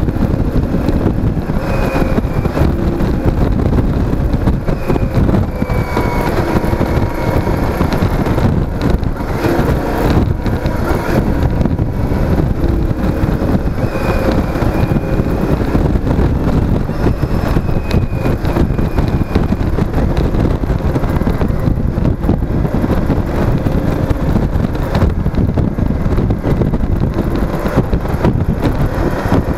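Cruiser motorcycle being ridden at a steady road speed. Wind rushes over the microphone along with road noise, and a faint engine note rises and falls slightly underneath.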